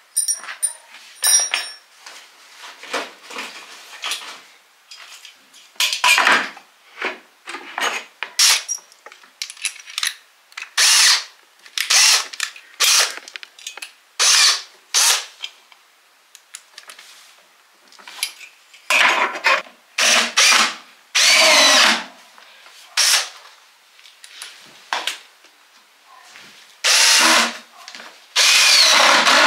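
Cordless drill-driver running in repeated short runs of one to two seconds, with pauses between, into the particleboard panels of a flat-pack bedside table being assembled; some runs have a motor whine that rises and falls. A few sharp knocks come near the start.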